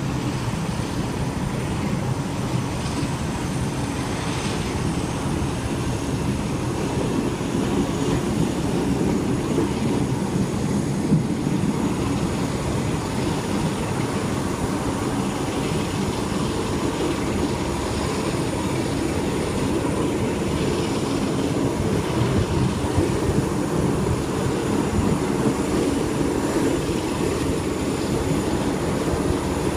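Steady running noise of a diesel-hauled train heard from inside a carriage: a continuous low rumble of wheels on rail with the Class 47 locomotive's diesel engine working under power.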